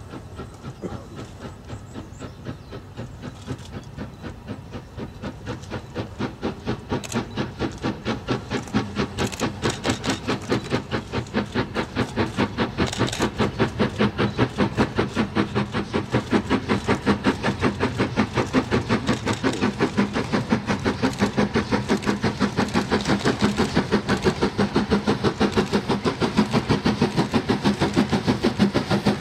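LMS Stanier Class 8F 2-8-0 steam locomotive working a heavy freight, its exhaust beating in a steady rhythm that grows steadily louder as it approaches.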